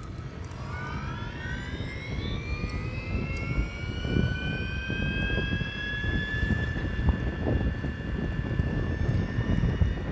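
Piaggio Vespa Elettrica's electric motor whining as the scooter gets under way, the whine rising in pitch over the first few seconds and then holding steady, over a low rumble of road and wind noise picked up near the footboard.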